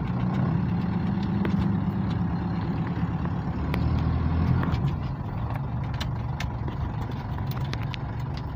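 Car engine running as the car moves slowly, heard from inside the cabin: a steady low drone that eases off a little past halfway.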